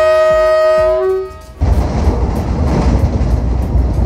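Diesel locomotive horn blowing one steady note that stops about a second in. After a short gap the train rumbles and clatters along the track, heard from on board.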